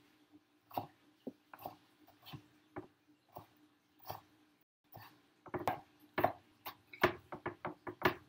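Knife chopping red pepper on a plastic cutting board: scattered knocks of the blade on the board at first, then a quicker run of chops over the last three seconds.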